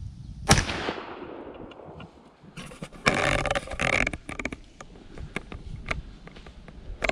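A single muzzleloader rifle shot about half a second in, its echo rolling away over the next second and a half. Then a couple of seconds of rustling and handling noise, with scattered clicks.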